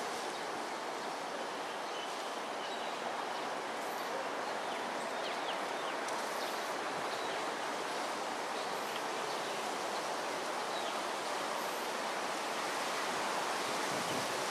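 Steady outdoor background noise, an even rushing hiss with no pauses, with a few faint high chirps scattered through it.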